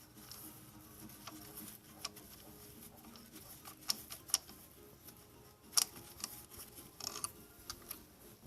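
Faint, irregular clicks and light taps, a handful scattered over several seconds, the sharpest about four and six seconds in.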